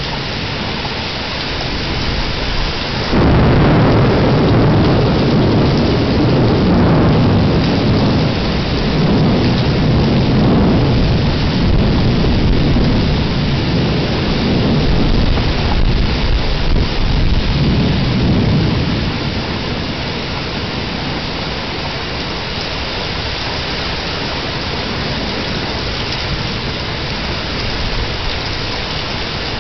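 Steady rain, with thunder breaking suddenly about three seconds in and rumbling for some fifteen seconds before dying back to the rain alone, picked up by a porch security camera's microphone.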